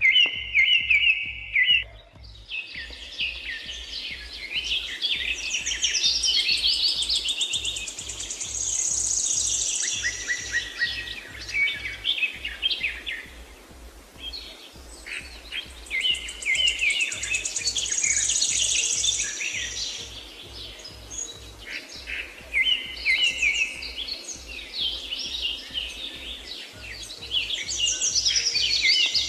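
Songbirds chirping and trilling, several voices overlapping in a busy morning chorus, with a brief lull partway through.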